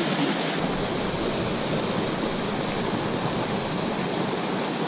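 Small waterfall on a steep mountain creek pouring into a plunge pool: a steady rush of falling water.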